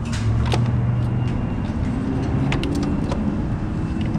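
Steady low mechanical hum, with a handful of sharp plastic clicks and taps as test-lead clips are handled at a wiring connector in the engine bay.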